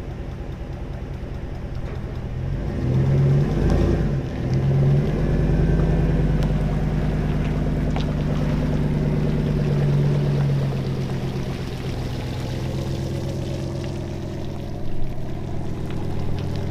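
Pickup truck engine pulling a bass boat on its trailer up a launch ramp out of the water. It runs under load, gets louder about three seconds in, then holds fairly steady.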